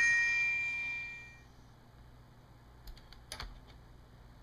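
An electronic chime from the computer, the sound of a USB device being connected as the phone is plugged in, rings and fades away over the first second and a half. Two faint clicks follow about three seconds in.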